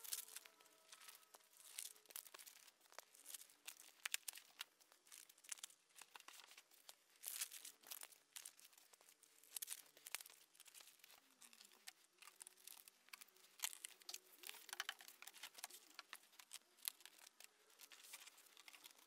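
Faint, irregular crinkling, crackling and tearing of packaging being handled: backing paper peeled off self-adhesive foam corner and edge protectors, which are pressed onto a long cardboard box.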